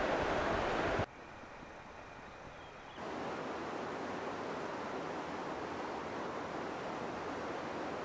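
Steady rushing of running water outdoors. It drops sharply about a second in and comes back louder about three seconds in.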